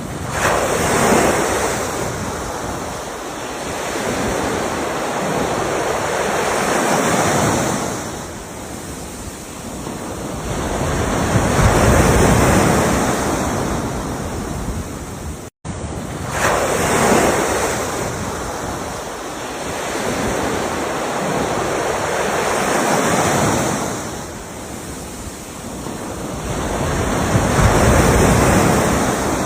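Ocean waves breaking and washing ashore one after another, a surge building and fading about every five to six seconds. The sound cuts out for an instant about halfway through.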